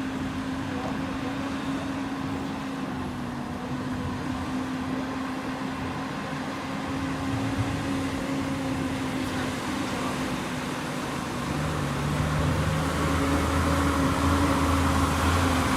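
A machine running with a steady hum; a deeper rumble joins and it grows louder about 11 seconds in.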